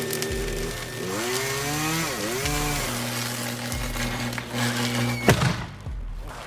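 Two-stroke chainsaw engine running, its pitch dipping and rising as it is revved and loaded, then steady. A sharp crack about five seconds in, after which the saw sound falls away.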